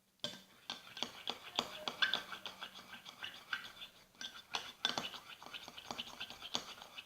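Spoon stirring a thick shampoo-and-salt mixture in a small bowl: a busy, irregular run of scrapes and clicks, with the spoon now and then clinking and ringing against the bowl.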